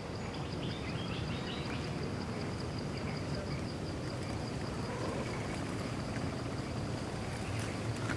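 Forest ambience: an insect's steady, evenly pulsed high-pitched call over a low rumble, with a few short bird chirps about a second in.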